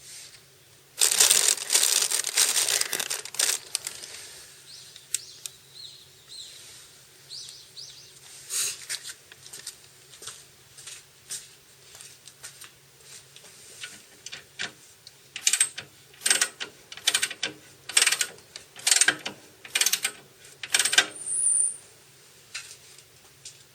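Hands-on workshop handling noises: a hiss of about two and a half seconds near the start, scattered light clicks and rattles, then a run of short scratchy scrubbing strokes about one a second.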